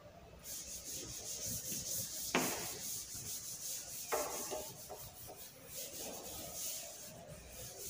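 Chalkboard being wiped with a duster in rapid back-and-forth strokes, a repeated dry rubbing hiss. Two short knocks come about two and a half and four seconds in.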